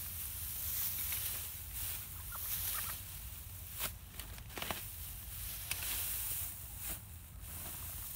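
Pitchfork lifting and tossing dry straw from a round bale, the straw rustling and crackling in uneven strokes, with a few short hen clucks a little over two seconds in.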